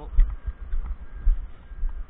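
Footsteps of a person walking on wet tarmac, heard through a body-worn camera as dull thuds about twice a second.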